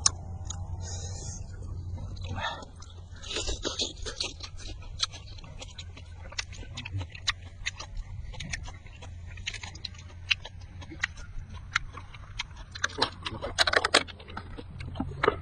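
Close-miked chewing and lip-smacking on roasted cow-head meat: a steady run of wet clicks and smacks, with louder clusters about three seconds in and near the end.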